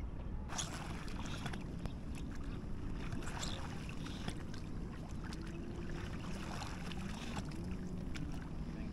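Wind rumbling on the microphone over moving water, with light splashes and lapping throughout.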